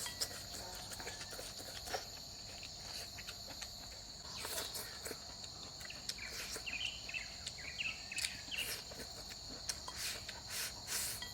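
Steady, faint insect chorus holding two high-pitched trilling tones throughout, with scattered small clicks and a few brief chirps over it.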